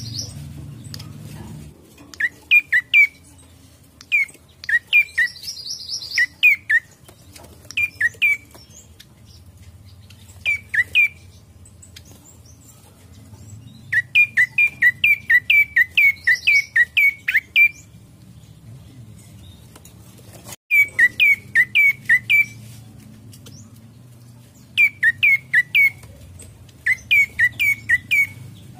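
Prenjak coki singing: loud, sharp downslurred chirps in quick runs of three to ten notes, with short pauses between the runs. This is its lure song, used to set other prenjak singing.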